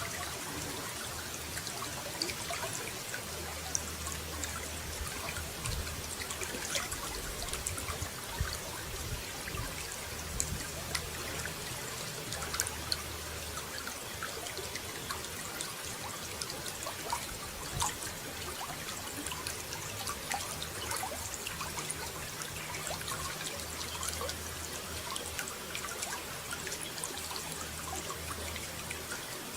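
Running water trickling and splashing steadily, with many small droplet splashes throughout.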